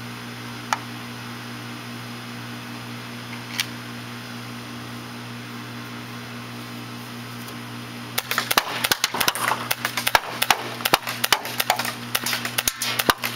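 CO2-powered airsoft HK USP pistol fired in a fast string of sharp pops for about five seconds, starting about eight seconds in. Two lone clicks come earlier, and an air-conditioner condenser hums steadily underneath.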